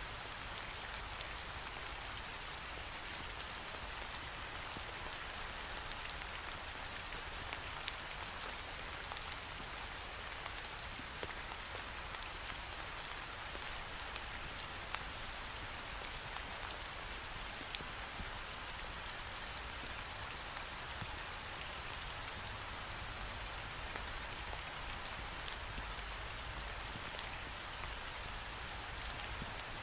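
Steady rain falling against a window pane, a continuous patter with scattered sharper drop taps.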